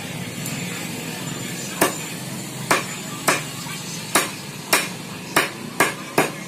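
A blade chopping raw chicken on a wooden log chopping block: about eight sharp chops at uneven intervals, starting about two seconds in.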